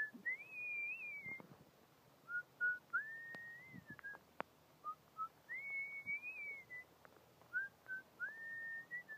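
A man whistling a slow tune through pursed lips: four phrases, each a couple of short notes leading into a long held note.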